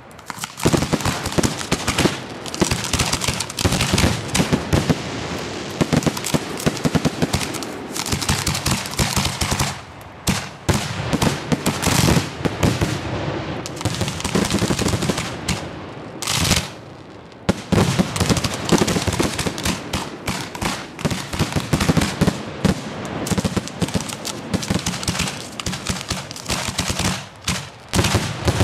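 Professional fireworks finale: a rapid, near-continuous barrage of shots as the display launches from the ground, easing off briefly twice.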